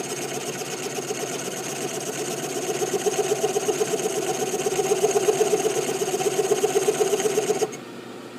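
Milling machine cutting slots into a steel M1911 pistol slide: a steady mechanical whir with a fast, even pulse and a high whine. It grows louder about three seconds in, then drops off sharply near the end to a quieter running sound.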